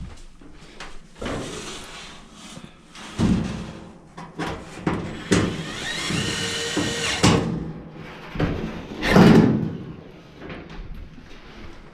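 Metal dryer parts being handled: a series of knocks and clunks, a scraping slide with some metallic ringing about six seconds in, and a heavy thud about nine seconds in.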